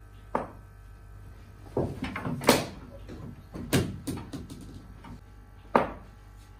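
Indoor cricket play: a string of sharp knocks of a hard ball against bat, tiled floor and wooden board, with a quick cluster about two seconds in and single knocks near four and six seconds.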